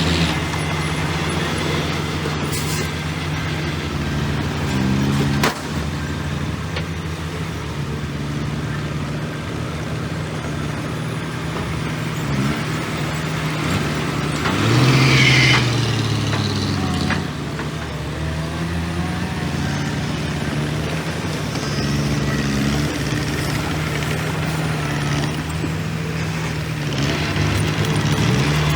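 Heavy diesel earthmoving machinery running steadily, with a sharp click about five seconds in and the engine revving up for a couple of seconds about halfway through.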